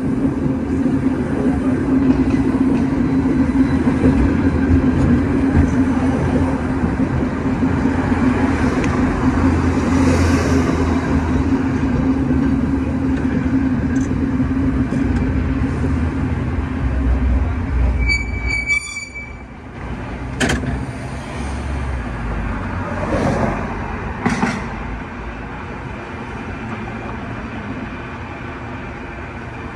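San Francisco cable car rolling along its track with a steady low hum and rumble. About two-thirds of the way through there is a brief high squeal, after which the hum fades and the sound goes quieter as the car slows, with a few clunks and clicks.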